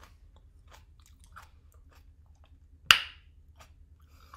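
A person chewing food, with soft wet mouth clicks and small crunches, and one sharp, much louder click about three seconds in.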